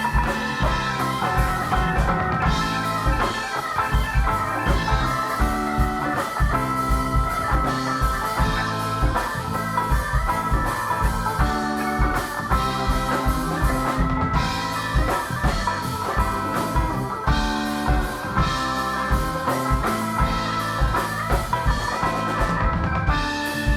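Rock band playing an instrumental break without vocals: drum kit keeping a steady beat under organ and electric guitar lines.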